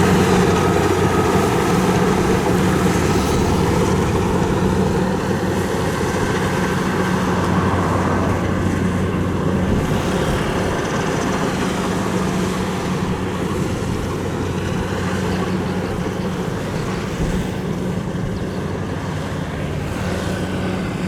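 Kubota DC-70 combine harvester's diesel engine running steadily under load, with a constant low hum and a dense mechanical clatter over it.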